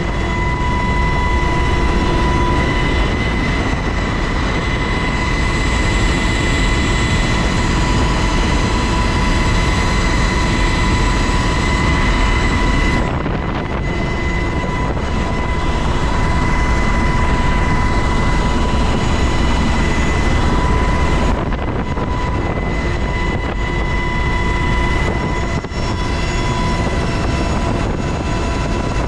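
UH-60 Black Hawk helicopter in flight heard from inside its cabin: loud, steady rotor and engine noise with a steady high-pitched whine over it.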